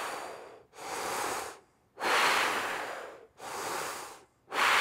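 A man breathing deeply in and out through an open mouth and throat: a run of unpitched breaths about a second each, louder and softer ones taking turns, with short pauses between. It is a brass player's diagonal bellows breathing exercise, moving a lot of air with little pressure.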